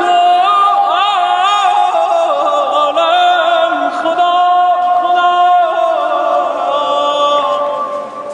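A man singing solo and unaccompanied in a Persian classical style, holding long notes and breaking them with rapid warbling ornaments and glides. His voice rings on at length in the tiled domed prayer hall of Isfahan's Shah (Imam) Mosque, so that each note overlaps the next.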